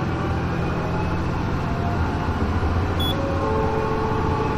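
Diesel railcar running as it pulls away from the station, with a steady low engine drone and a whine that steps up in pitch as it gathers speed.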